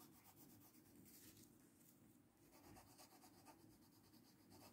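Very faint scratching of a coloured pencil shading on paper, barely above near silence.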